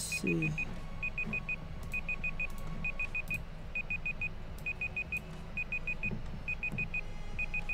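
Electronic alarm beeping: groups of four quick, high-pitched beeps, repeating evenly about once a second, with a few sharp clicks scattered among them.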